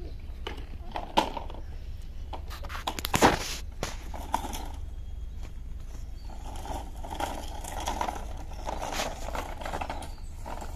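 Scattered knocks and steps, then a blue plastic toy truck pulled on a string rattling and scraping as its wheels roll over a rough dirt lane, from about halfway through.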